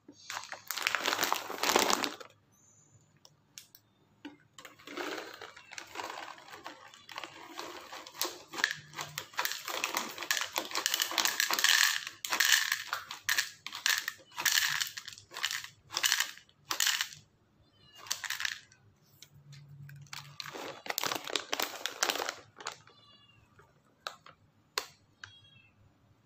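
Dry cat kibble poured from a crinkly plastic food bag onto a hard plastic lid. The bag rustles and the pieces rattle and patter as they land, in several separate bursts.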